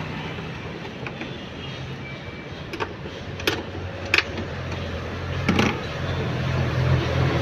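Car engine idling with a steady low hum, with four short sharp clicks of hands working on plastic parts around the radiator.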